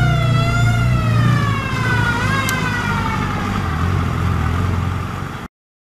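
WWII M8 Greyhound armoured car driving away: a high whine from the vehicle falling slowly and steadily in pitch over the low rumble of its Hercules six-cylinder petrol engine. The sound cuts off suddenly about five seconds in.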